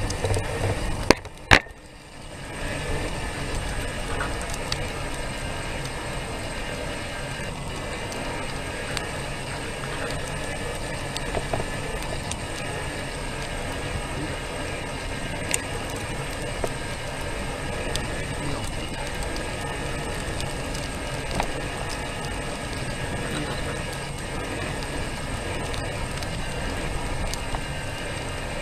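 Steady rolling noise and light mechanical rattle of a small vehicle moving slowly over a concrete street, with scattered ticks and clicks. Two sharp knocks come about a second and a half in.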